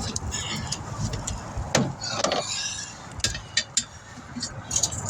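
Scattered metallic clicks and clinks from working a tire onto a rim at a tire changer machine, with two louder scraping knocks about two seconds in.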